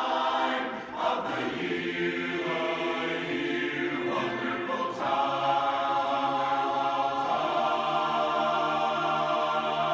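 Men's barbershop chorus singing a cappella, holding full sustained chords, with brief breaks about a second in and again about five seconds in.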